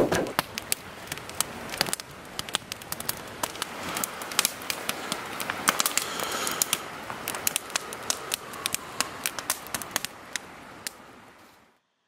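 Wood campfire crackling, with quick, irregular sharp pops over a soft hiss. The sound fades out just before the end.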